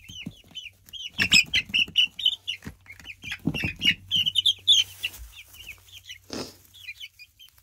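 Young chicks peeping rapidly, in quick runs of short high chirps. A few scuffles and wing flutters break in as they are lifted out of their box onto straw bedding.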